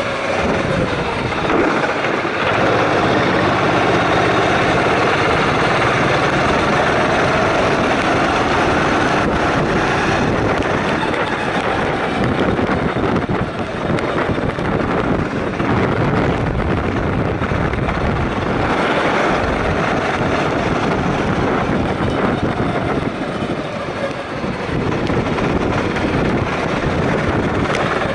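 Onboard sound of a go-kart engine running hard, its pitch climbing as the kart accelerates along the straights and dropping off when it slows for the corners.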